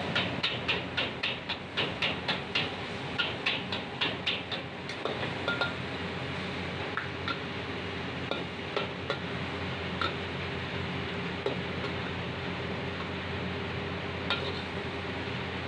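A metal ladle clanking and scraping against a wok while noodles are stir-fried over a gas flame. Quick clanks come about three a second for the first five seconds, then only now and then, over a steady hiss from the burner and the sizzling food.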